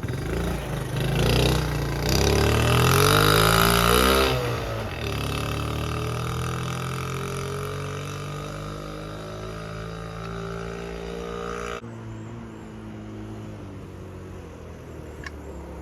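Motor vehicle engine speeding up with a rising pitch, loudest a few seconds in. It then runs on steadily with a slowly falling pitch. The sound changes abruptly about twelve seconds in.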